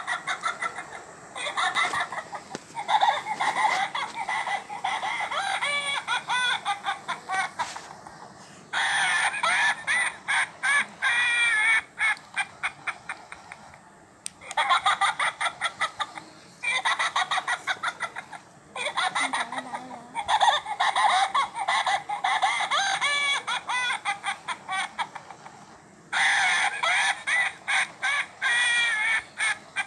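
Talking plush panda toy giving out its high-pitched, warbling electronic chatter in stretches of a few seconds, broken by short pauses.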